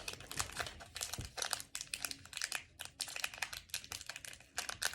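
Wrapper of a trading-card pack crinkling in a run of short crackles as it is handled and opened.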